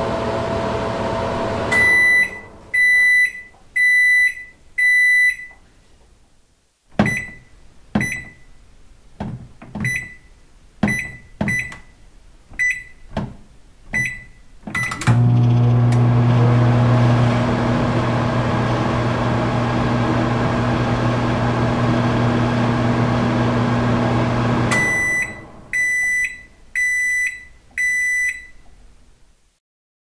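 Microwave oven: its running hum stops and four beeps sound. Then about eight short clicks, each with a brief beep, like keypad presses. It runs again with a steady low hum for about ten seconds and ends with four more beeps.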